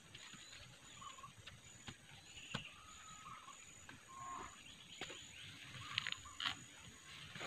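Faint scraping and crumbling of loose soil as taro corms are dug out by hand, with scattered light clicks and knocks. Brief faint animal calls sound in the background.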